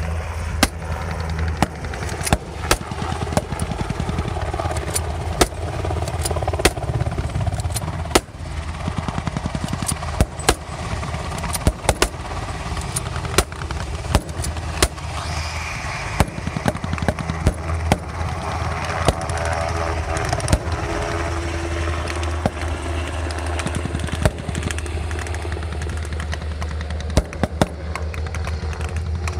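UH-60 Black Hawk helicopters landing and lifting off: a steady, heavy rotor and turbine drone. Many sharp cracks, irregularly spaced and louder than the drone, break through it all the way.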